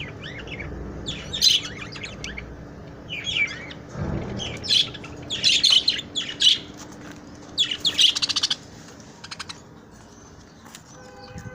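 Budgerigars chirping and chattering in repeated quick bursts, thinning out in the last few seconds.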